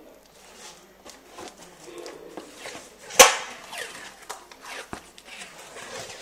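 Brown packing tape being pulled off its roll and pressed around a small cardboard box, with rustling and clicks from handling the box. One loud sharp snap about three seconds in.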